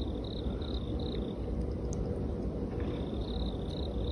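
Cricket chirping in short, even pulses about three times a second, pausing briefly in the middle, over a low steady rumbling background.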